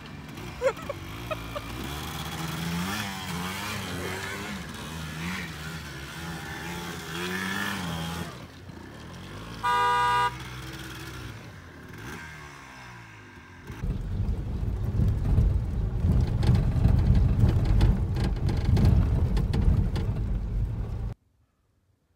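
Quad ATV and pickup truck engines revving in the snow, pitch rising and falling, with a short horn toot about ten seconds in. A loud low rumble follows for several seconds, then the sound cuts off abruptly.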